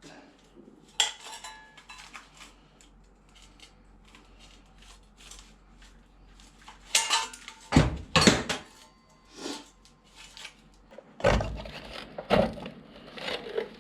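Metal clinks and knocks of hand tools working a small sheet-steel repair piece as it is bent into shape, with a cluster of loud strikes about seven to eight seconds in and more near the end.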